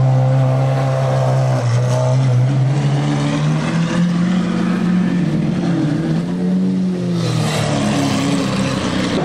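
Lamborghini Aventador SVJ's V12 with a Gintani exhaust, running loud and steady at low revs. The note swells briefly about seven seconds in.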